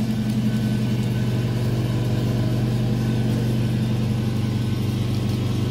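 Steady, loud, low mechanical drone of a running engine-like machine, unchanging throughout.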